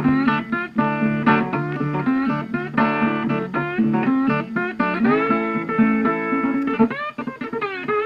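Background music: a guitar playing a run of plucked notes and strums, some notes sliding in pitch.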